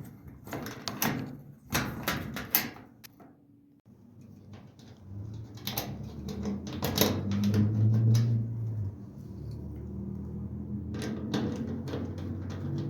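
Clicking and rattling of hands working wires and screws into the electric dryer's terminal block. After a short quiet gap a steady low hum comes in, with more scattered clicks over it.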